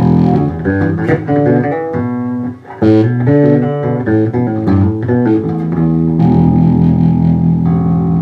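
Custom-built Westrose electric bass played plugged in, with both of its passive Seymour Duncan pickups on: a run of plucked notes, then held notes ringing out from about six seconds in.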